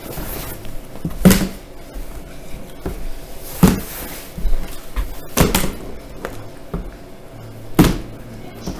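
Partly filled plastic water bottle being flipped onto a hardwood floor: four hard thuds about two seconds apart, with a few lighter knocks between them. These are failed landings, the bottle tipping over onto its side instead of standing upright.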